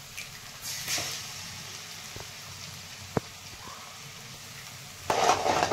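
Eggs being cracked into a hot pan of fried onion masala: one sharp crack of shell about three seconds in, then a loud burst of sizzling near the end.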